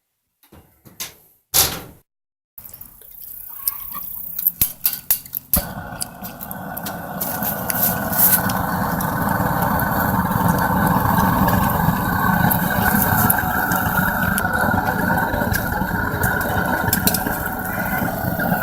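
A few sharp clicks and knocks, then a propane burner lights and builds up. From about five seconds in it settles into a loud, steady roar firing the small melting furnace.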